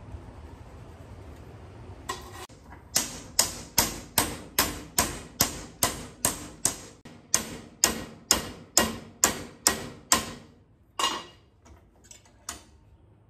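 Hammer blows on a flat steel strip clamped in a bench vise, bending it over 90 degrees, each blow a sharp metallic knock with a short ring. They come evenly at about two and a half a second for some eight seconds, followed by a couple of single knocks.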